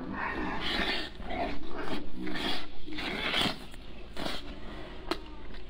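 Close-miked mouth sounds of someone eating braised pork off the bone: wet slurping, sucking and chewing in a string of noisy bursts, loudest in the middle.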